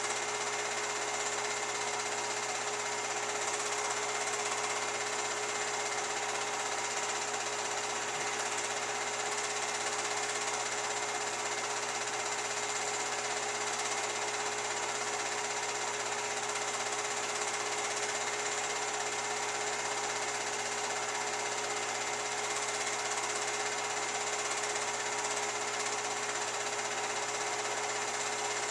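Film projector running steadily in a small room: an even mechanical whir with a constant hum, unchanged throughout.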